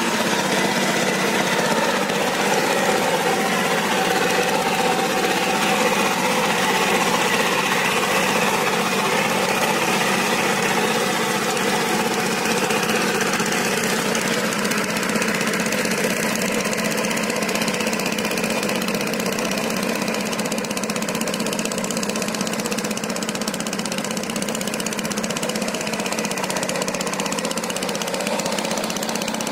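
Two-wheel power tiller's single-cylinder diesel engine running steadily under load as its rotavator churns through wet paddy mud, growing a little fainter in the second half as it moves away.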